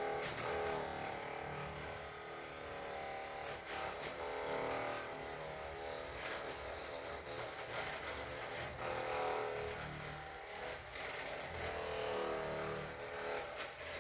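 Handheld percussion massage gun running on a person's muscles, its buzzing motor tone swelling and easing every couple of seconds.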